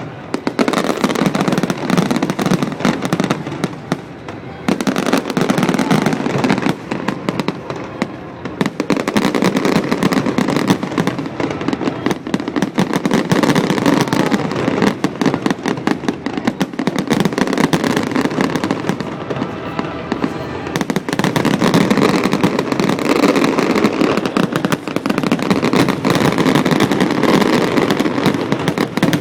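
Fireworks display: a dense, near-continuous run of bangs and crackling bursts, easing briefly about four seconds in and again around twenty seconds in.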